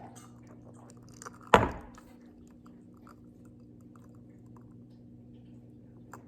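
A single loud thump about a second and a half in, dying away quickly, with faint small mouth clicks and swallowing sounds around it.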